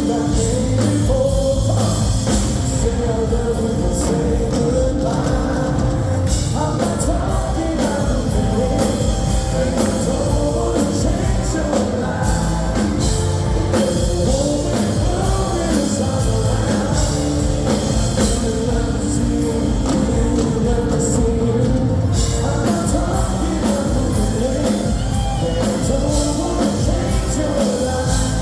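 A yacht rock tribute band playing live, with a lead singer over the full band, loud and continuous.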